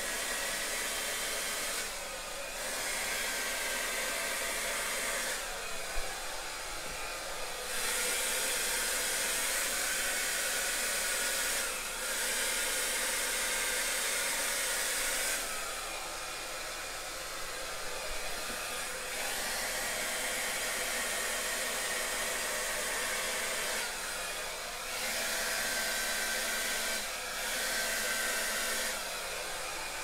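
Hand-held hair dryer running continuously, its tone and loudness shifting every few seconds.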